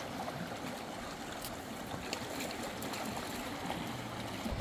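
Steady rush of a fast river flowing over rocks, an even hiss of running water, with a few faint ticks.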